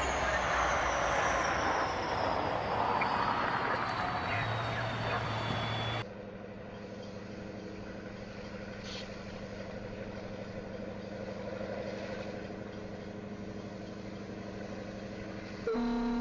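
Railway snow plow train ploughing through deep snow: a loud rushing noise with a whine that falls slowly in pitch. About six seconds in, the sound cuts to the steady hum of a train's diesel engine, and a loud steady tone begins right at the end.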